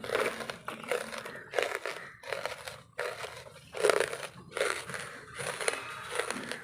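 Close-miked chewing of lumps of wood charcoal: a run of irregular dry crunches, about one or two a second, with one louder bite near the middle.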